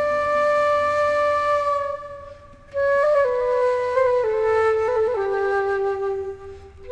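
A flute playing a slow melody: one long held note, a brief pause, then a phrase that steps downward and settles on a held lower note.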